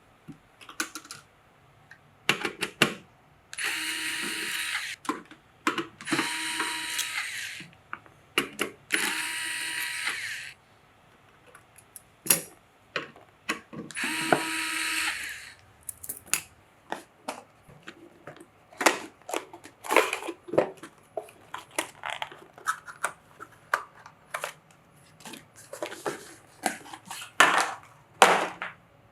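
Small electric screwdriver running in four short bursts of about a second and a half each, driving screws, with clicks and knocks of parts being handled in between.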